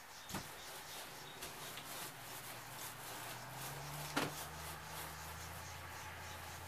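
Small paint roller rolling paint onto a travel trailer's interior wall, a faint sticky crackle, with two light knocks. A low steady hum comes in about halfway through.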